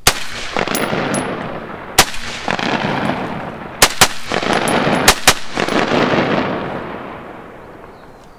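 ATI Omni Hybrid AR-15 pistol in 5.56 mm firing six shots, spaced unevenly with two quick pairs in the middle. Each shot leaves a long rolling echo. The shooting stops after the sixth shot, when the pistol jams with a spent case caught backwards in the action.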